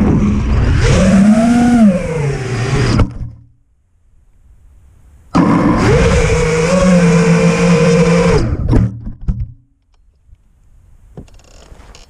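Brushless motors and props of a 5-inch FPV quadcopter (Armattan Badger on iFlight Xing 2450kv motors with HQProp Ethix S5 props) whining, rising and falling in pitch with the throttle, then cutting out about three seconds in. After about two seconds of quiet they start up suddenly and run at a steady pitch for about three seconds while the quad sits in grass, flinging up clippings, then stop.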